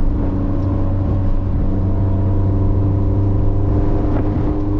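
Toyota Corolla's four-cylinder engine running steadily under way, a constant drone with a little road noise.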